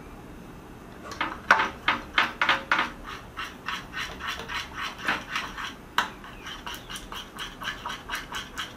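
A spoon stirring sticky slime mixture in a glass baking dish, scraping and clicking against the glass in quick repeated strokes that start about a second in.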